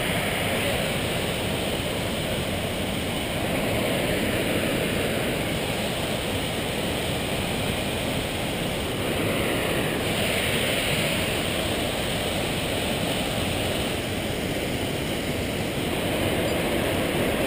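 Steady rushing of a creek below: an even noise that runs on without a break.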